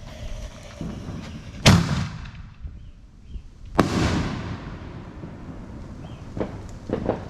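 Aerial firework mortar shell: two loud booms about two seconds apart, each echoing away.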